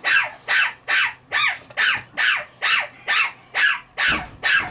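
One-month-old Shiba Inu puppy barking over and over in short, high yaps, each dropping in pitch, at a little over two a second.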